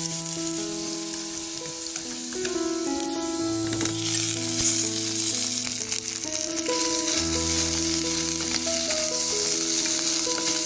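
Food sizzling steadily as it fries in hot oil in a pan, with background music of held notes playing over it.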